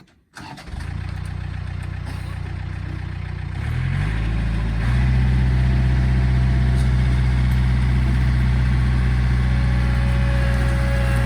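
Engine of the machine dragging a chained log uphill, running steadily. Under a second in it comes in at a lower speed, then about four seconds in it speeds up and gets louder and holds there while pulling the log.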